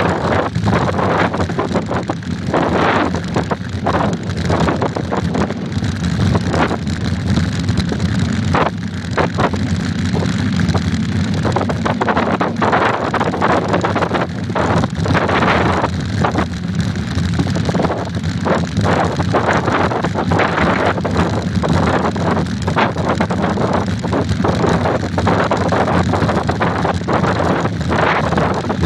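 Wind buffeting the microphone of a bike-mounted iPhone while a mountain bike rides a rough dirt road, with a constant rumble and many quick knocks and rattles as the bike and mount jolt over the ruts.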